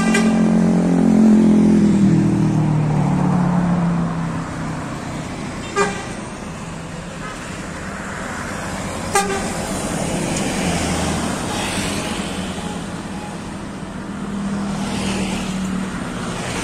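Road traffic passing close by: a vehicle engine running loudly for the first few seconds, then two short horn toots about three seconds apart as a coach bus passes, over steady traffic noise.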